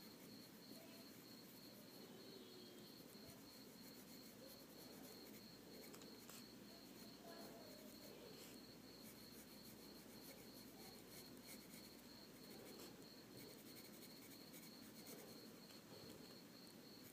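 Near silence: faint room hiss with a soft, high-pitched chirp repeating evenly several times a second.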